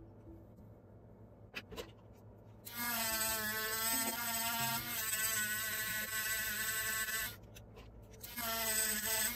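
Mini rotary tool with a cotton-swab bit running against a silver coin, buffing it with polishing compound: a steady high motor whine. It starts about three seconds in after a couple of light clicks, stops around seven seconds and starts again about a second later.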